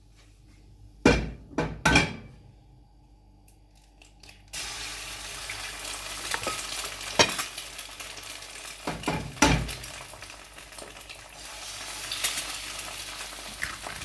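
Two sharp knocks, then, about four seconds in, eggs start sizzling as they fry in the hot pan the bacon was just cooked in. A few sharp clinks of utensil on pan come through the sizzling.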